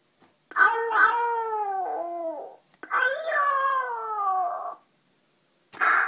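Talking Tom interactive toy cat crying out through its speaker when its paw is pressed: two long wails of about two seconds each, both falling in pitch. A shorter burst of sound starts just before the end.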